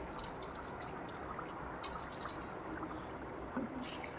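Thick chili-and-spice paste simmering in a wok, bubbling steadily with scattered small pops as the sauce reduces.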